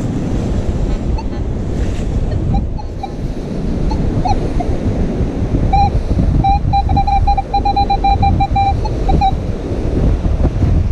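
Wind buffeting the microphone over the surf, with a Minelab Manticore metal detector giving short, steady, high-pitched target beeps. The beeps are scattered at first, then come as a rapid run of repeated beeps from about six and a half to nine seconds in as the coil passes over a buried metal target.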